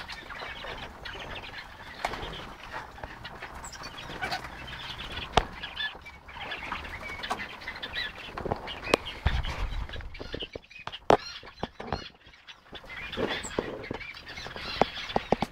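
Crested wood partridges (roulrouls) foraging in wood-chip litter and a seed tray: steady rustling and scratching with scattered sharp clicks, under many short high chirps.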